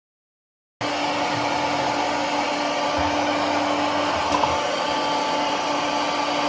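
Hair dryer running steadily at full blast, with a constant hum under its rushing air; it starts abruptly about a second in, after dead silence.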